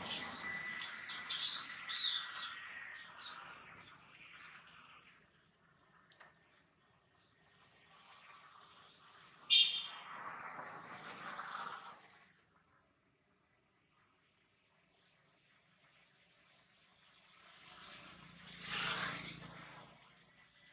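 Steady high insect chirring throughout, with scratchy rustling and small squeaks from macaques moving about in the first few seconds and one short, high squeal from a monkey about ten seconds in. Near the end a passing motor vehicle swells and fades.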